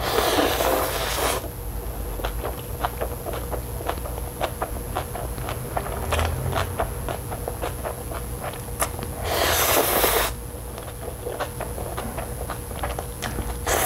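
Close-miked eating sounds of a person slurping and chewing instant noodles: two long slurps of about a second each, one at the start and one about nine seconds in, with wet chewing and lip-smacking clicks between.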